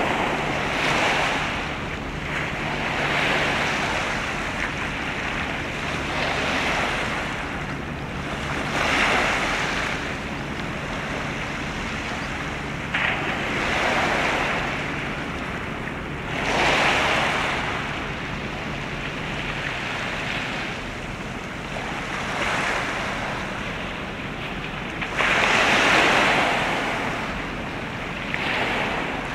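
Waterfront wind and waves: a rushing noise that swells every few seconds, over a faint steady low hum.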